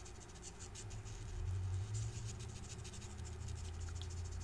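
Marker tip colouring on cardstock in quick, light scratchy strokes, over a low steady hum.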